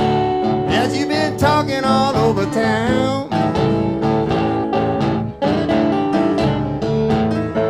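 Background song with guitar and a singing voice over it.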